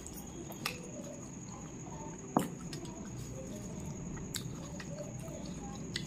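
Close-up eating sounds: wet chewing and squelching as rice and chicken curry are mixed and eaten by hand, with a few sharp clicks, the loudest about two and a half seconds in.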